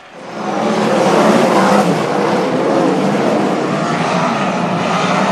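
A pack of dirt-track race cars at full throttle. The engine noise rises sharply just after the start and stays loud, several engine notes wavering together.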